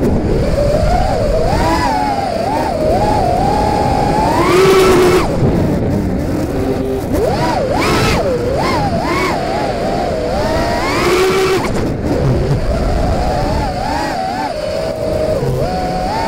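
FPV quadcopter's electric motors whining, the pitch swooping up and down continually as the throttle changes, with sharp climbs about four seconds in and again near eleven seconds.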